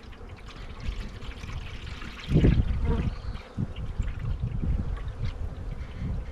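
Liquid being poured into a beehive feeder, with bees buzzing around it. A loud low rumble comes about two and a half seconds in.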